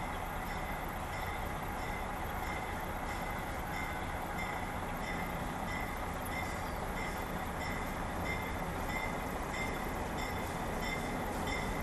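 A diesel freight locomotive rumbling as it approaches, with a railway warning bell dinging in a steady repeating rhythm over it. The rumble grows slightly louder toward the end.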